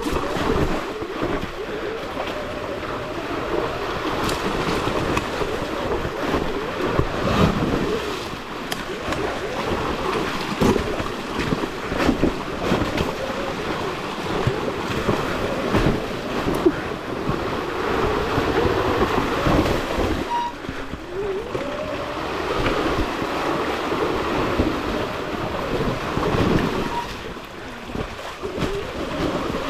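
Sur Ron Ultra Bee electric dirt bike riding rough ground: its electric motor whine rises and falls with the throttle over a steady rush of noise, with scattered knocks from the bike hitting the terrain.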